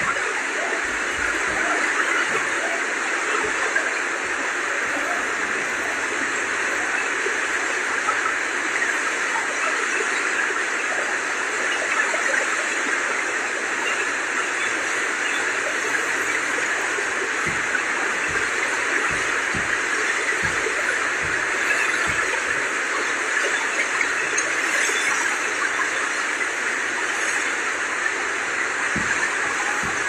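Floodwater of the Kosi River rushing through the barrage: a loud, steady rush of turbulent water.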